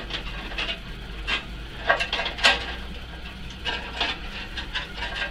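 Irregular metallic clicks and knocks of a bandsaw blade being handled and seated on the wheels of a Kity bandsaw, with two louder knocks about two and two and a half seconds in.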